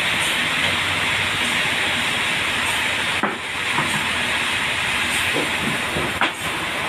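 Band sawmill sawing a trembesi log into boards: a steady loud hiss of blade and machine, briefly dipping about three seconds in, with a few sharp knocks near the end.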